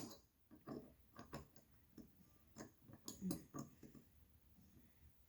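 Faint, irregular clicks and taps of a puzzle lock's pieces being handled and turned, mostly in the first few seconds.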